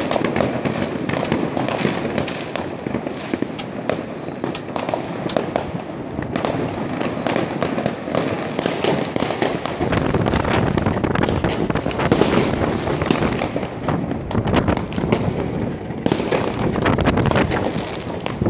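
Many fireworks and firecrackers going off at once, near and far: a continuous crackle and rumble with frequent sharp bangs.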